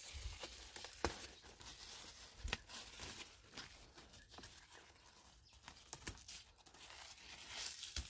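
Cucumber leaves and rosemary rustling and crackling as they are handled and brushed against the microphone, with a few sharper crackles, the loudest about a second in.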